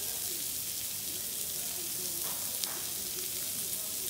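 Blackened sheepshead fillets frying in butter in a pan, sizzling with a steady hiss.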